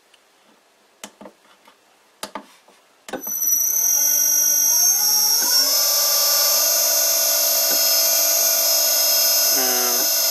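A few keypad clicks on a variable frequency drive, then about three seconds in the drive starts its motor: the motor ramps up with a stepped rising hum and settles into steady running under a loud high-pitched whine from the drive's 6 kHz carrier frequency. Near the end the pitch briefly dips and comes back.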